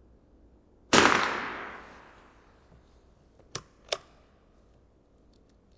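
A single .22 LR rifle shot about a second in, its echo dying away over about a second, followed a couple of seconds later by two short sharp clicks about half a second apart.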